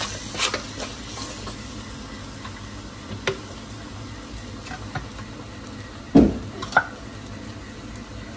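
Wooden spatula stirring mud crab, squash and string beans in a stainless steel wok, scraping and clacking against the pan over a steady sizzle. Two louder knocks come about six seconds in.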